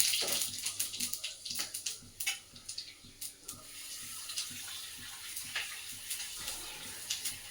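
Whole cumin seeds sizzling and crackling in hot oil in a kadhai during tempering: a steady frying hiss with irregular sharp pops, strongest in the first couple of seconds and then settling.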